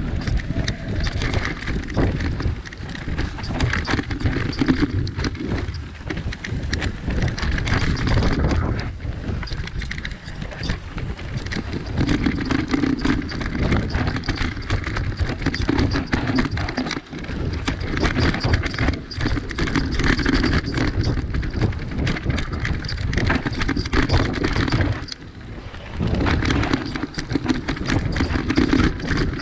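Mountain bike descending a dirt forest trail, heard from a camera mounted on the bike: steady tyre noise over dirt and roots with constant rattling and sharp knocks from the bike. The sound drops briefly about 25 seconds in.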